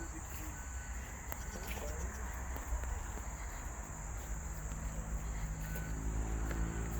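Insects calling in a steady, unbroken high-pitched drone, with a low rumble of wind on the microphone underneath. About halfway through, a low steady hum of several tones comes in beneath it.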